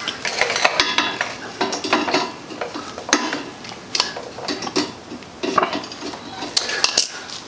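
Irregular metallic clinks and clicks of steel tie wire and hand tools (a wire-clamp tool and pliers) knocking and scraping against a steel frame as a wire clamp is finished off, some clinks ringing briefly.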